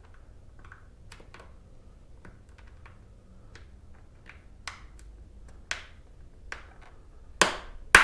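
Scattered small clicks and taps as a mirror-hole plug is pressed and popped into the mirror mount hole of a Harley-Davidson fairing, with two sharper knocks near the end.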